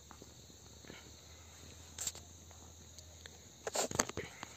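Faint steady background noise with a few short clicks, one about two seconds in and a small cluster near the end.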